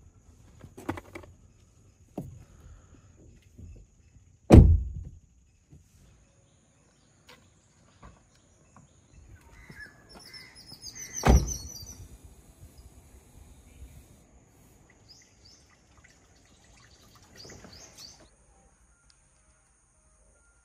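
Two heavy thumps of car doors being shut, about seven seconds apart, the first the louder, with a few softer knocks of handling around the car. Birds chirp around the second thump and again near the end.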